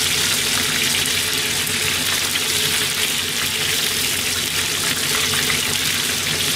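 Karaage (Japanese fried chicken) deep-frying in a pot of hot oil: a steady, dense sizzle.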